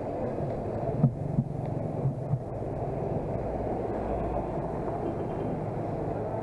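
Muffled, steady rumble of wind and road vibration picked up by an action camera mounted on a moving bicycle, with a few knocks about one to two and a half seconds in.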